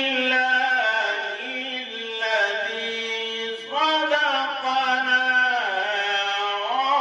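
A man chanting Islamic devotional verse into a microphone, drawing out long wavering notes in melodic phrases. A new phrase begins a little past halfway.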